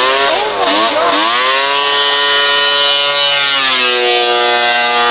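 Unmuffled Polaris XCR triple-cylinder two-stroke snowmobile engine, fitted to a quad, running hard at full throttle. Its pitch climbs steeply as it accelerates, holds high, then drops about three and a half seconds in as the machine passes by.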